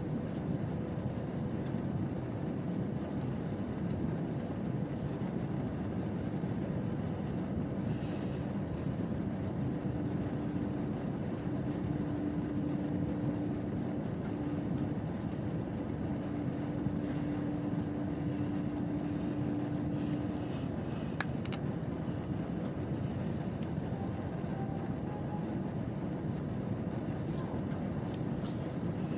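Steady rumble inside an Intercités passenger train, with a low steady hum for about ten seconds midway and a single sharp click soon after.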